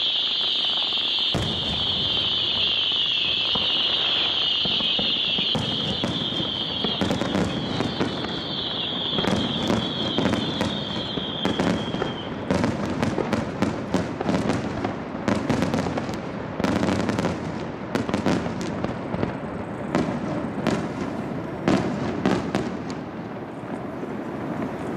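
Fireworks display over the sea: aerial shells bursting with sharp bangs and crackles that come thick and fast from about nine seconds in, echoing off the surrounding hills. A steady high hiss runs through the first half and stops about twelve seconds in.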